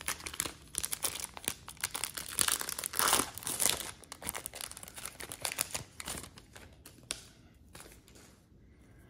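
Foil trading-card pack wrapper crinkling and tearing as it is opened by hand. The crackling is loudest a few seconds in and thins out to nothing near the end.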